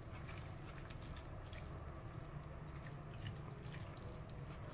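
Red silicone spatula stirring chopped onion, tomato and herbs in vinegar and olive oil in a stainless steel bowl: faint wet stirring with small scattered clicks, over a low steady hum.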